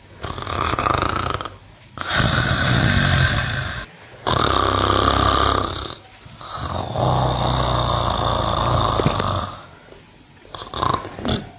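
A cow snoring: four long, noisy breaths of about one and a half to three seconds each, with short pauses between, then a few short ones near the end.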